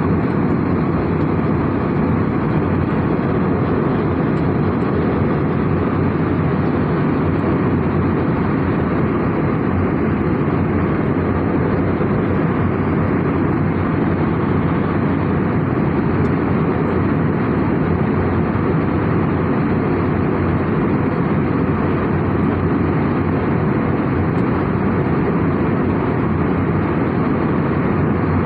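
Steady, even rumble of an airliner's cabin in flight: engine and airflow noise, with no change in pitch or level.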